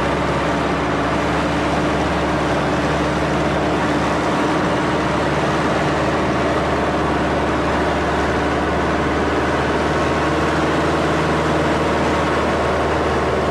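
Small airplane's engine and propeller running steadily in flight: a constant, loud noise with steady low engine tones underneath.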